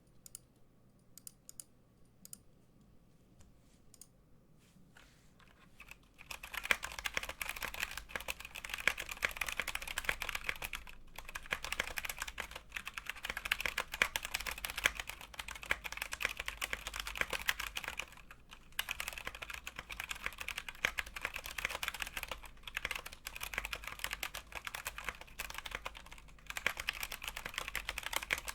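Typing on a stock Anne Pro 2 mechanical keyboard with Gateron Brown tactile switches and aftermarket keycaps. A few isolated keystrokes at first, then fast continuous typing from about six seconds in, broken by a few short pauses.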